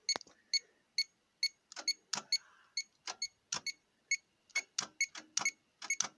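A car's electronic warning chime beeping steadily, about twice a second, over irregular sharp clicks and clatters from test leads and tools being handled.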